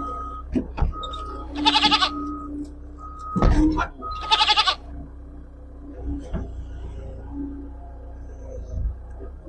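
Skid steer engine running with its reversing alarm beeping about once a second, the beeps stopping about halfway through. A goat bleats twice over it, one call about one and a half seconds in and another about four seconds in.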